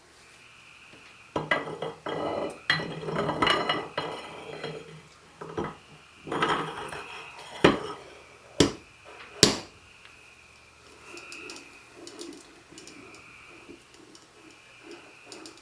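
Loose steel bearing balls and small steel parts of a drill press quill's ball bearing clinking and rattling as the bearing is loaded and fitted by hand. A few seconds of clattering are followed by three sharp, separate clinks, then only faint light taps.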